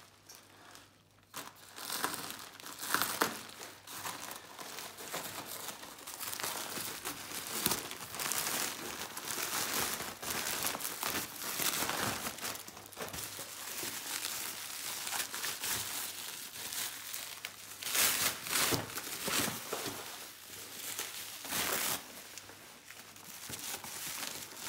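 A plastic mailer bag and bubble wrap crinkle and rustle as a parcel is pulled open and unpacked by hand, with louder crackling surges every few seconds.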